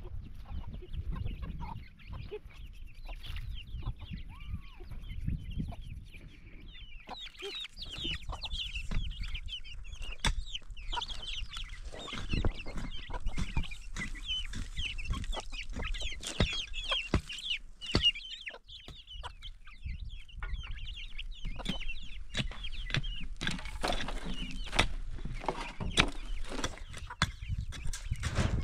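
Chickens clucking, with a dense run of short high chirps through the middle and scattered sharp knocks. A low rumble sits underneath near the start and again at the end.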